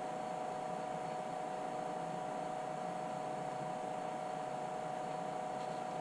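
Steady electrical hum with a single unchanging high tone and a faint hiss beneath it.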